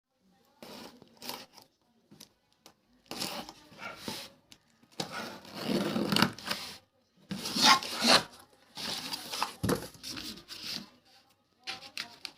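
Packaging being handled: rubbing and scraping against the box in irregular bursts with short pauses between them.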